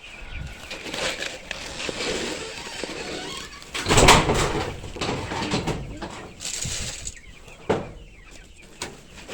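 Backyard chickens clucking among rustling noise, with a brief loud burst of noise about four seconds in.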